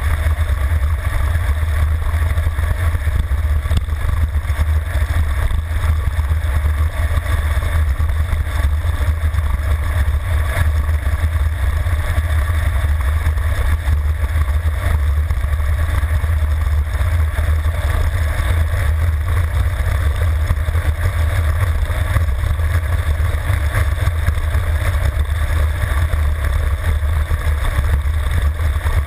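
Wind buffeting the microphone of a handlebar-mounted camera on a road bike descending at high speed: a steady, loud, deep rumble of rushing air that never lets up.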